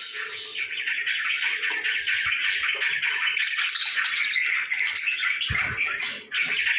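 Lovebirds chattering in a dense, continuous stream of high chirps and twitters, with a brief low thump about five and a half seconds in.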